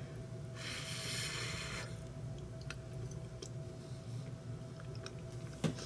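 Quiet room with a faint steady hum, a soft hiss lasting about a second shortly after the start, and a few faint clicks.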